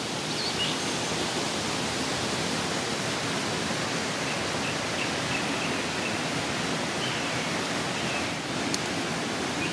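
Waterfall running steadily: an even, unbroken rush of falling water.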